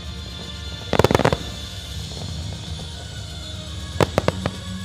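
Aerial fireworks shells bursting: a rapid cluster of sharp bangs about a second in, then three or four more bangs near the end.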